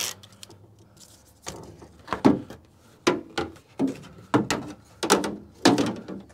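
A string of irregular knocks and clacks, about eight over a few seconds, from parts being handled and set in place.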